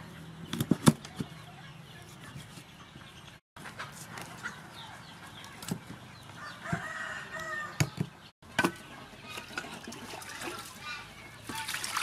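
A cleaver scrapes and knocks on a wooden chopping board as a whole fish is scaled and cut open. A few sharp chops come about a second in and more later. Chickens cluck in the background.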